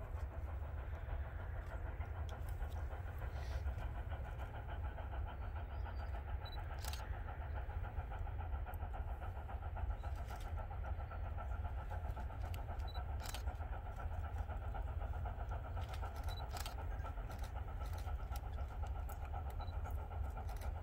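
Steam locomotive working steadily, its exhaust chuffing over a deep rumble, with a few sharp clicks.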